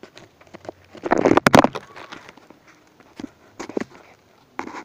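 Rustling and knocking handling noise from the phone being moved against the body close to its microphone. It is loudest about a second in, with a few more short knocks near the end.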